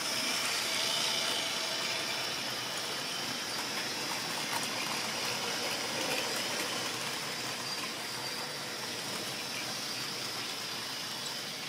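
Model railway goods train running past: a long rake of small wagons rolling on the track, a steady rumble of metal wheels on rail with a few faint clicks, slowly fading.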